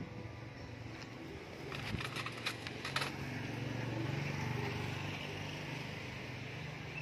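Low engine hum, likely passing street traffic, swelling about four seconds in, with a quick run of sharp clicks just before.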